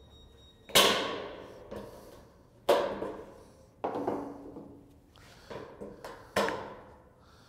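Hand tin snips cutting through painted sheet-metal gable trim: a series of sharp snips, a couple of seconds apart at first, with two lighter ones close together before the last, each fading away briefly.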